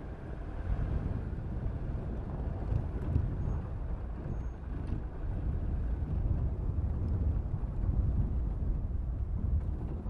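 Steady low rumble of a car driving, with road and engine noise and no distinct events.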